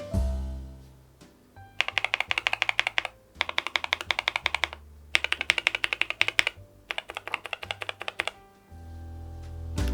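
Fast typing on a NuPhy Air96 low-profile keyboard with Gateron LP 2.0 red linear switches, in four quick runs of about a second and a half each with short pauses between. Piano music fades out at the start and comes back near the end.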